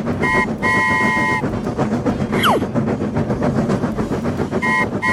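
Train horn sounding a short toot then a long blast in a two-note chord, twice, over fast, steady clickety-clack of train wheels on rail joints. About halfway through, a whistle drops steeply in pitch.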